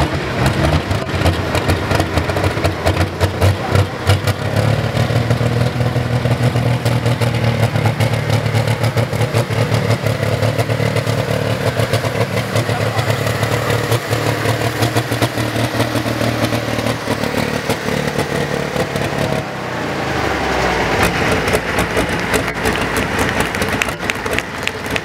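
Diesel engine of a modified Valtra pulling tractor with an AGCO Power badge, running loud. It holds a steady note from about five seconds in to about twenty seconds in, then the low engine note drops away and a noisier, higher sound takes over.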